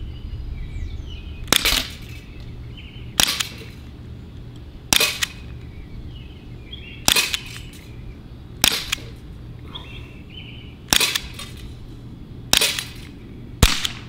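Sig P365 CO2 air pistol firing .177 BBs, about eight sharp pops one to two seconds apart, most followed closely by a fainter tick. Two of the trigger pulls in the string misfired.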